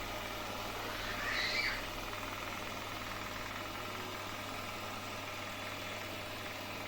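Tapo RV30 Max robot vacuum running steadily with a constant whir, with a brief high squeak about a second in.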